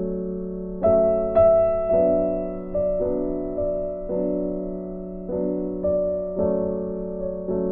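Background music: a gentle piano melody, notes struck about once or twice a second over sustained chords.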